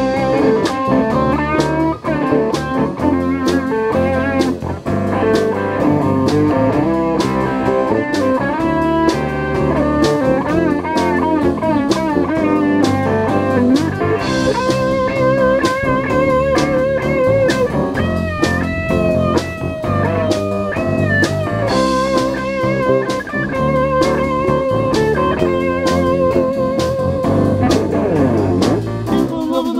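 Live band playing an instrumental passage with no singing: an electric guitar lead with bent, wavering notes over bass guitar, drum kit and keyboard.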